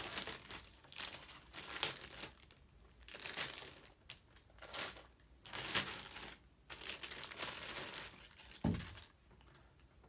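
Clear plastic bag crinkling in repeated bursts as a keyboard is slid out of it, with a dull bump near the end.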